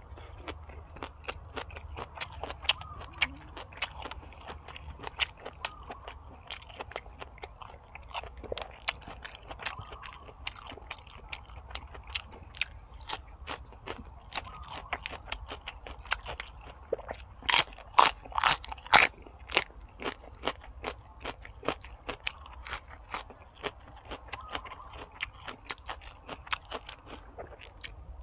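Close-up eating sounds of boiled pig's head and crunchy raw vegetables: steady chewing with many small wet mouth clicks, and a run of louder, sharper crunches about two-thirds of the way through.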